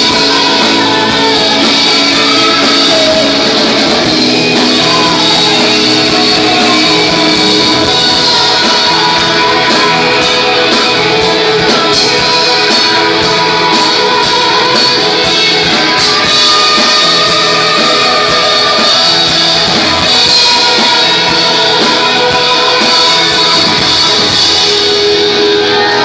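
Rock band playing live: loud, dense electric guitars over a drum kit, with a voice singing.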